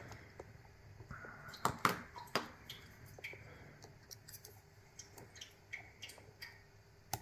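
Lock picks working in the keyway of a GOAL D9 nine-pin dimple lock: irregular small metallic clicks and ticks, with a few louder clicks around two seconds in.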